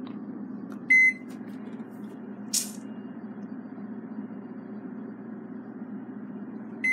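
Microwave oven keypad beeps: one short, high electronic beep about a second in and another at the very end, over a steady low hum. A brief rustle comes in between.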